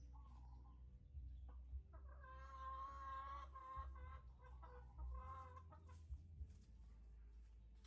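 A drawn-out, high-pitched animal call lasting nearly two seconds, then a shorter one about three seconds later, over a low steady hum.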